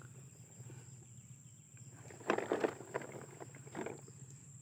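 Faint rustling of grass and plastic as a toy dump truck is pushed over a lawn, in two short bursts, the louder about two seconds in and a smaller one near the end.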